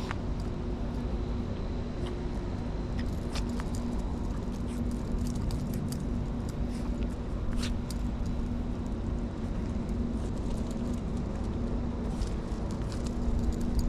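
Steady mechanical hum over a low rumble, with a few faint light clicks.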